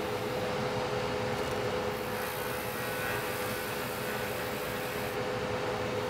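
Trautman router running steadily, its spinning bit grinding the edge of the hole in the end of a prosthetic socket's lock to smooth and round it over. A steady motor hum with a high grinding hiss that comes and goes as the bit bites the plastic.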